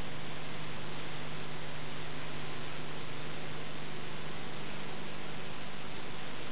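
Steady hiss with a low electrical hum and nothing else happening.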